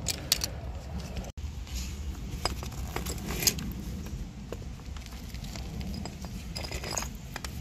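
Scattered light metallic clinks as pliers and a deep socket are handled against a strut's shaft and top nut, over a low steady background rumble.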